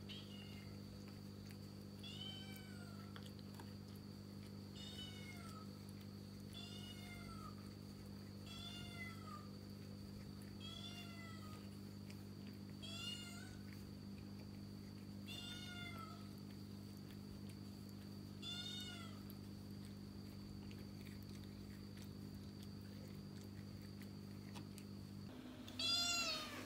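A kitten meowing over and over: short, high meows about every two seconds, over a steady low hum. After a pause there is one louder meow near the end.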